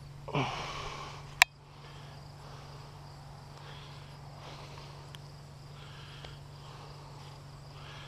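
Quiet outdoor ambience under a steady low hum, with a short breathy exhale near the start and one sharp click about a second and a half in as the head-mounted GoPro camera is handled; after that only faint background noise.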